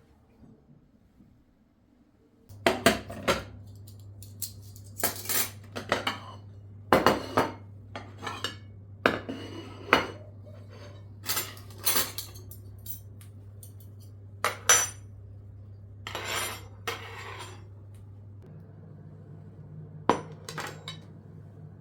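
Dishes and cutlery clattering and clinking as they are handled, many sharp knocks in irregular succession, over a steady low hum that starts a couple of seconds in.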